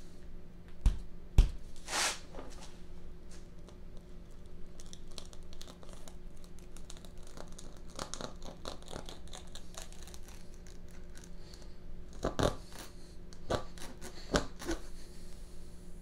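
Tire plug kit reamer being pushed into and worked in and out of a puncture in a truck tire's tread, enlarging the hole before it is plugged: repeated rubbery scraping and rasping, with a few sharp knocks about a second in and again near the end.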